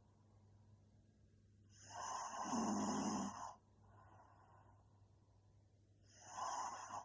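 A young woman snoring in her sleep. One long snore starts a little under two seconds in and lasts about two seconds, then there is softer breathing, and the next snore begins near the end.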